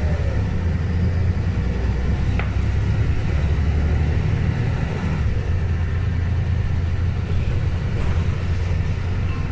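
LiAZ-5292.22 city bus heard from inside the passenger cabin: a steady low engine rumble, with two light clicks.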